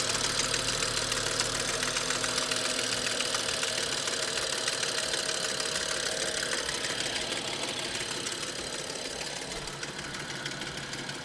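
Audi S6 engine running hot with a fast, steady metallic rattle from the timing case at the front of the engine, loud at the microphone. The owner takes it for a worn timing chain, though the oil pressure is fine. It gets slightly quieter near the end.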